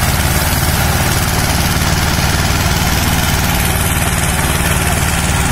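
Diesel tractor engine running loud and steady, with an even low beat and no rise or fall in revs, as it works to free a stuck, loaded sugarcane trolley.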